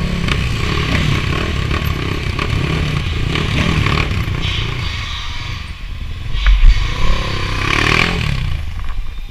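Dirt bike engine running as the bike rides along, heard from on board, its pitch rising and falling with the throttle. A loud low thump about two-thirds of the way through.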